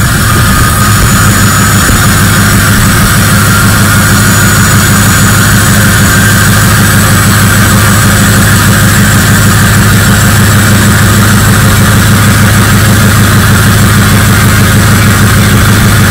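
Straight-piped 6.0L Powerstroke V8 turbo-diesel in a Ford F-250, idling steadily and loudly through its open exhaust, still cold from a cold start.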